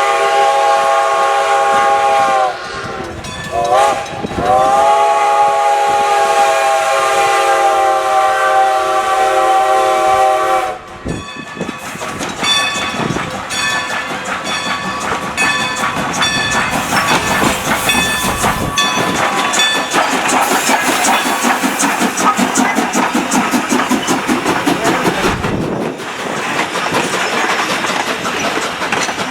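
Steam locomotive whistle blowing two long blasts, the second about six seconds long, with a brief dip in pitch between them. A train then rolls past, its wheels making a steady clickety-clack over the rail joints.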